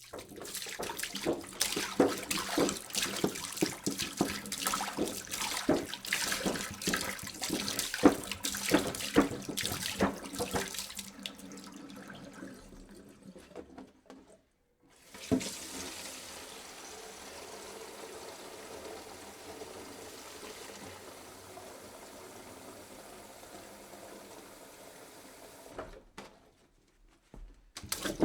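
Water pouring into a jug: a splashy, gurgling pour that tapers off about 12 seconds in and stops. A second pour starts with a splash about 15 seconds in and runs as a steady, even stream until it cuts off near the end.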